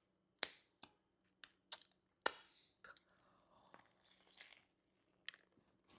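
Close-miked crunching and crackling of a s'mores cookie with graham cracker crumble being broken and eaten: a handful of short, sharp crunches at uneven intervals, the loudest a little past two seconds in.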